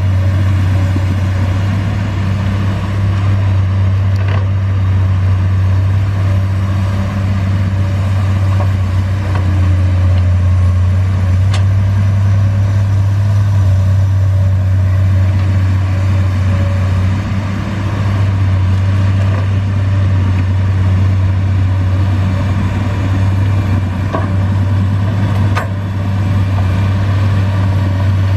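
Komatsu PC200 excavator's six-cylinder diesel engine running steadily while it digs soil, a constant low drone. A few short clicks stand out above it now and then.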